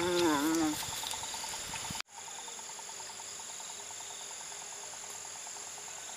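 Insects, crickets among them, chirring steadily with a fast, regular pulsing; the chorus starts after a brief dropout about two seconds in. Before that, in the first second, the tail of a person's drawn-out, wavering voiced sound.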